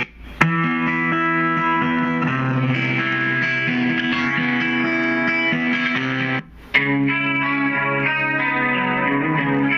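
Music led by guitar, playing held chords. It cuts out briefly twice: just after the start and about two-thirds of the way through.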